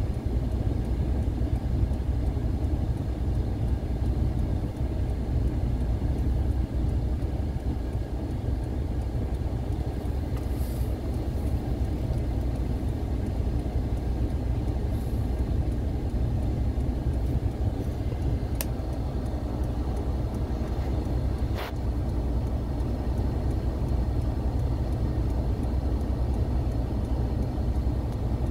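Steady low rumble of a car's engine and tyres on the road, heard from inside the moving vehicle. Two short, sharp clicks a few seconds apart, about two-thirds of the way through.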